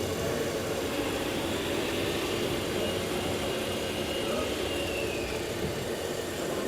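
RC model trucks and construction machines running: a steady mechanical hum from their motors and engine-sound modules, with a faint high whine that falls in pitch about five seconds in.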